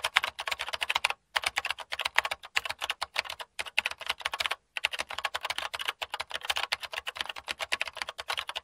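Computer keyboard typing sound effect: a fast run of key clicks, several a second, with two brief pauses, about a second in and about halfway through.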